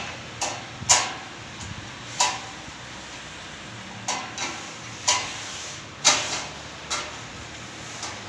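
Sharp metallic clicks and knocks, about nine at uneven intervals, as a long screwdriver or hex key works bolts into the metal frame of a baby-warmer stand, the tool knocking against the bolt and frame. The loudest knocks come about a second in and about six seconds in.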